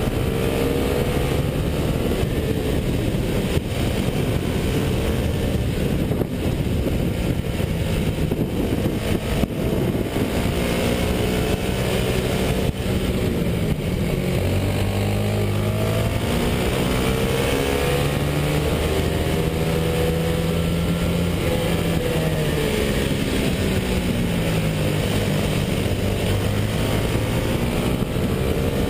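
Racing kart's engine heard on board, its pitch repeatedly climbing as it accelerates on the straights and dropping as it slows into the corners.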